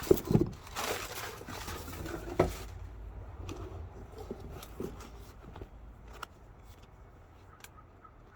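Handling noise as a pair of new leather sneakers is pulled out of its box: rustling with two sharp knocks over the first two and a half seconds, then only a few soft clicks of handling.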